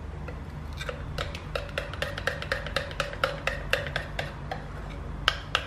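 Metal spoon clinking against a ceramic bowl while stirring melted milk chocolate and oil, about four light clicks a second, each with a short ring. A steady low hum runs underneath.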